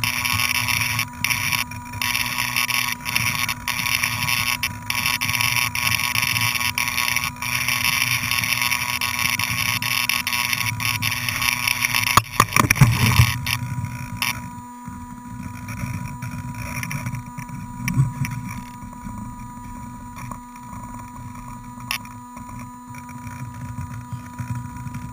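Multirotor drone's motors and propellers whirring steadily, heard through the camera on board. About twelve seconds in there is a knock as it comes down on the floor, and after that the whir drops to a quieter, lower hum.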